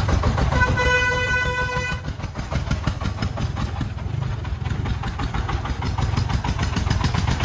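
24-horsepower single-cylinder diesel engine of a three-wheeled công nông truck loaded with sand, running steadily as it drives off. A horn beeps once, lasting about a second and a half, near the start.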